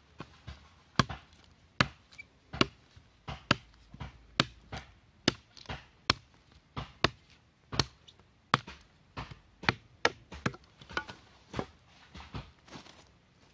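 Machete blade chopping into a wooden stick laid on the ground, sharp chops at a fairly even pace of about one a second, with lighter knocks in between.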